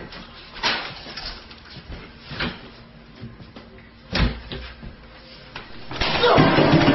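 A few sharp knocks and clunks spaced a second or two apart, then a louder, rough burst of noise lasting about a second near the end.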